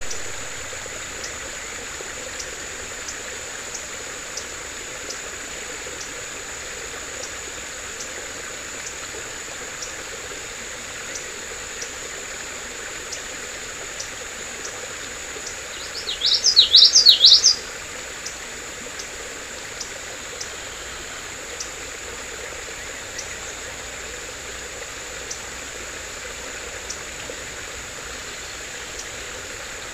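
Steady hiss of a creek running over rocks, under a faint steady high whine with soft ticks about every second. About sixteen seconds in, a bird sings one quick burst of sharply rising and falling notes lasting about a second and a half, the loudest sound.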